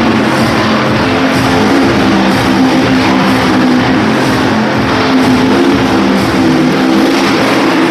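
Loud, steady rock music with held chords that change every second or so.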